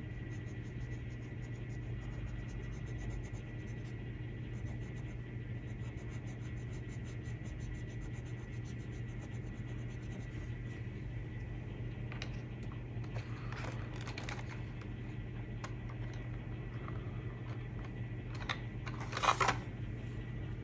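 Coloured pencil scratching lightly on paper over a steady low hum, with a short cluster of louder taps and scrapes near the end.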